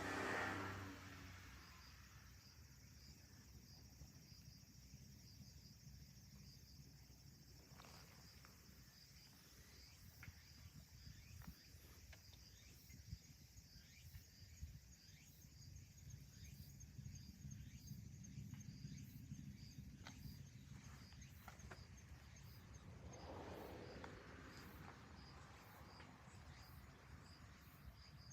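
Near silence: faint outdoor background with a low rumble and a faint, evenly repeating high chirp. A louder sound fades out in the first second.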